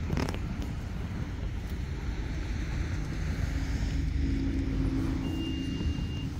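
Steady low rumble of a motor vehicle engine running nearby, with a steady low hum joining about three seconds in.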